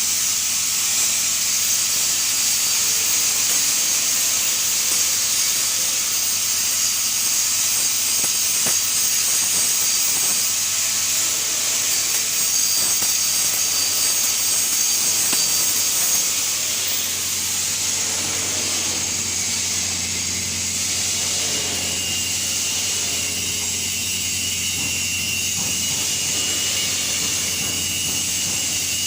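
TIG (gas tungsten arc) welding arc hissing steadily over a low hum; the high hiss eases a little about halfway through.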